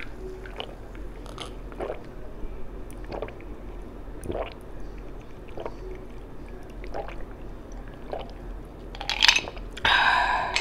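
A person drinking water from a glass, swallowing in a steady series of gulps a little over a second apart. Near the end the drinking stops with a loud open-mouthed exhale.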